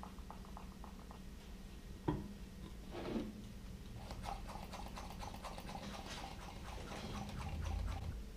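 Quiet handling sounds around a glass-jar vacuum chamber: a sharp knock about two seconds in and a softer one a second later, as the plastic cup and the lid go onto the jar. From about four seconds on comes a run of small rapid clicks as the hand vacuum pump and its hose are handled, over a faint steady hum.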